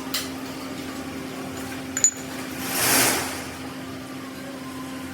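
A steady machine hum in a metal workshop, with a sharp metallic clink about two seconds in and then a brief hiss that swells and fades about a second later.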